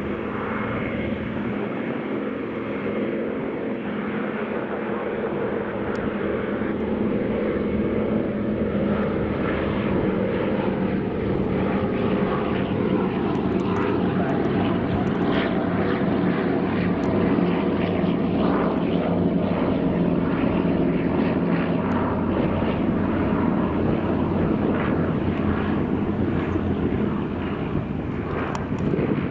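Two Douglas C-47 Skytrain (Dakota) transports flying past in formation, the steady drone of their Pratt & Whitney R-1830 Twin Wasp radial engines and propellers, growing somewhat louder through the middle as they pass.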